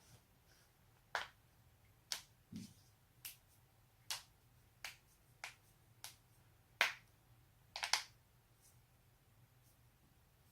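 A person's joints cracking: a series of about ten sharp pops at uneven intervals, with one duller, deeper pop a few seconds in and a quick cluster of cracks about eight seconds in.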